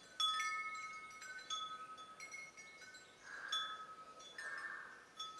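Wind chimes ringing quietly: light metallic strikes every half second to a second, each high tone ringing on after it is struck.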